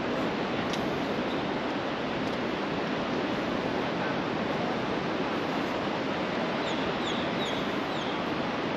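Sea surf washing steadily onto a sandy beach. Four short high chirps come in quick succession near the end.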